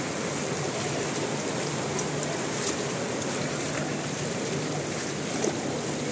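Steady rushing of rain and muddy floodwater running across a paved road, with faint scattered drop ticks.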